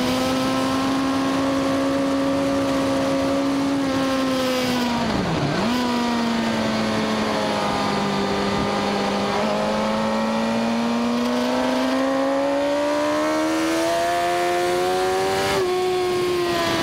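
Suzuki GSX-R1000 inline-four engine heard from on board the moving motorcycle. Its note holds steady, dips sharply and recovers about five seconds in, then climbs slowly and drops abruptly at a gear change near the end.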